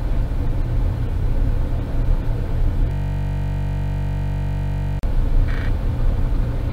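Steady low rumble of background noise. About three seconds in, the sound freezes into an unchanging buzz-like hold, which cuts off abruptly with a brief dropout about two seconds later, typical of a recording glitch.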